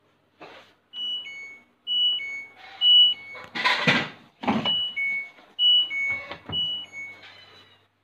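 LG front-loading washing machine sounding its alert beeps, a falling two-note chime repeated about once a second: the fault alarm of a washer that is not filling with water. A loud rustle and knock come near the middle.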